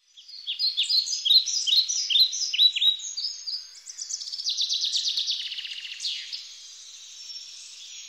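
Bird song: a quick series of high, falling chirps, a rapid trill in the middle, then a single falling note, after which it quietens.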